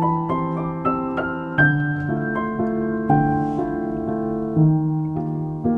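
Background music: a gentle piano piece playing a sequence of single notes over held low chords.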